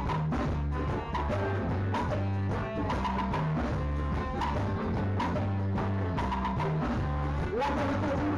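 Live band playing a rock song, with drum kit, bass and electric guitar, heard from the audience in a small club.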